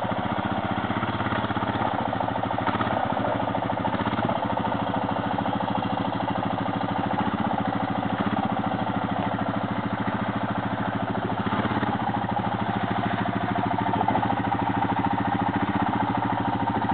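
Honda Foreman ATV's single-cylinder four-stroke engine running steadily at low revs as the quad crawls down a steep rock drop.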